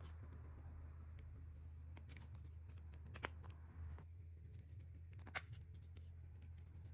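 Faint scattered clicks and taps, two sharper ones about three and five and a half seconds in, over a low steady hum.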